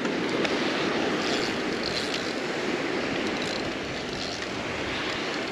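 Steady rush of surf breaking and washing up on a sandy beach, with wind on the microphone.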